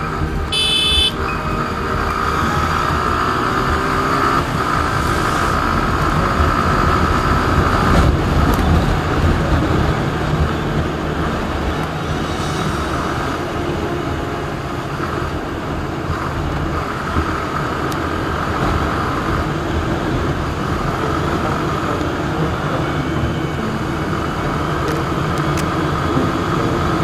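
Motorcycle engine running steadily at road speed, heard on board the riding bike, with rushing wind noise over it. A brief high-pitched tone sounds about a second in.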